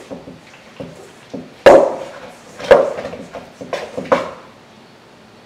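A utensil knocking against a mixing bowl while slime is being stirred: about six knocks, the two loudest a second apart near the middle.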